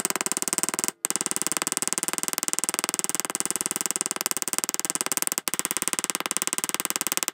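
Small ball peen hammer tapping copper rivets over a steel anvil plate, a very rapid, even run of light metallic taps with a steady ring from the plate, broken twice by short pauses. The rivets are being peened over to set them.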